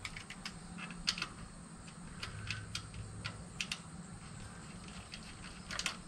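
Irregular light metallic clicks and taps of hand tools and ground-wire ring lugs being handled in a car's engine bay, over a faint steady low hum.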